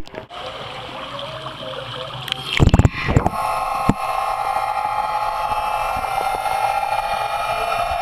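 A loud splash about two and a half seconds in, then the steady whine of a SeaDoo underwater scooter's electric motor, heard underwater.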